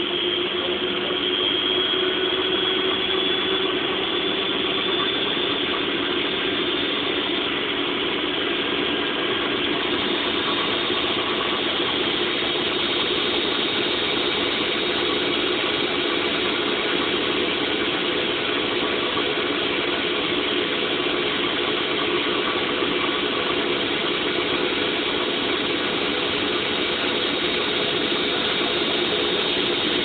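Ariston AL1056TX washing machine on its final spin: the drum and motor run with a steady whirring rumble and a motor whine. The whine rises slightly in the first few seconds, then holds steady.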